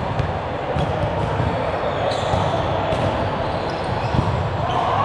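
Echoing gymnasium noise during an indoor ball game: a ball bouncing and thudding with scattered knocks, short high squeaks and a continuous wash of background hall noise.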